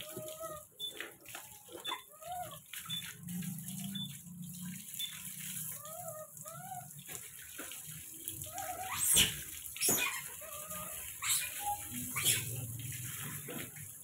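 Water running from a garden hose and splashing over a wet pet monkey and onto a concrete floor as it is bathed. Short pitched calls come every second or two, and there are several sharp, loud splashes or slaps in the second half.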